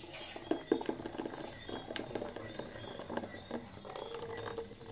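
Thick blended drink pouring in a thin stream from a blender jug into a steel pot of liquid: a trickle with many small irregular splashes and crackles as it hits the foamy surface.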